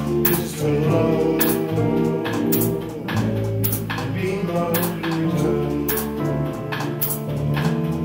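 Live jazz combo playing an instrumental passage: tenor saxophone carrying the melody over piano, guitar, double bass and drums, with regular cymbal strokes.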